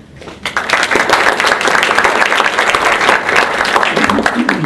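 Audience applauding, many hands clapping together; it swells up within the first second and holds steady.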